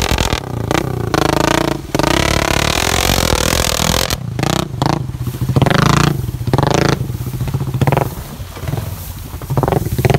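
Honda Rancher 420 ATV's single-cylinder engine revving up and down under heavy load as it ploughs through deep water and lifts its front end, with water splashing and churning around it.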